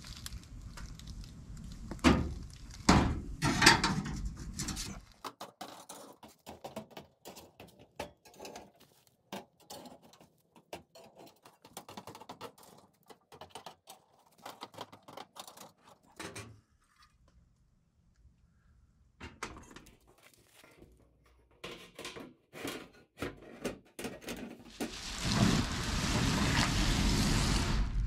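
Wire racks being slid into the rails of an upright metal smoker: a few sharp metal knocks, then scattered light clicks and scrapes with a short quiet gap about two-thirds of the way through. Near the end a louder steady rushing noise comes in.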